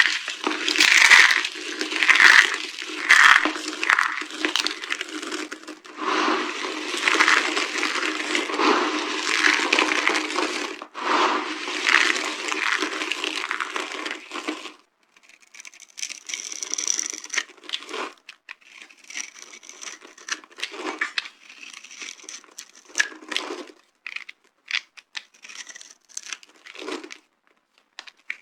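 Dry soap being crushed and crumbled by hand: dense, continuous crunching and crackling for about the first half, then sparser crackles and small snaps.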